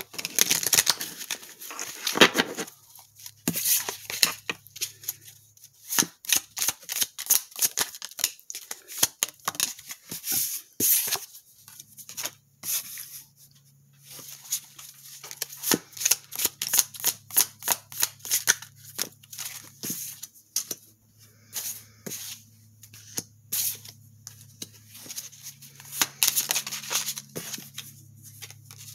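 A tarot deck being shuffled and handled: clusters of quick papery snaps and riffles, broken by short pauses.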